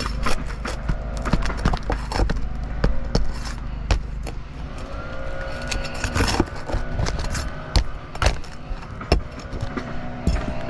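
Repeated short clicks and scrapes of a tool working under a roof shingle, lifting it slightly to get at its nail, over a steady low rumble.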